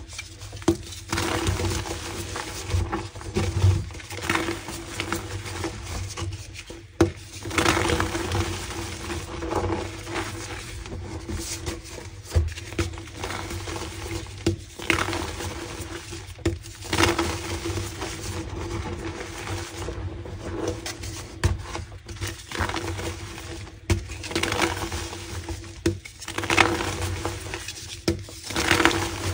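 Pink pressed gym chalk crunching and crumbling close to the microphone, in irregular crisp bursts every second or two.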